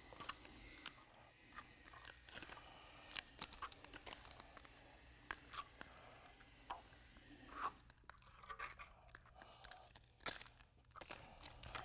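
Very faint scattered clicks and short scrapes of a steel hand trowel spreading and smoothing wet MMA resin slurry on a concrete floor, with a slightly louder scrape about two thirds of the way in.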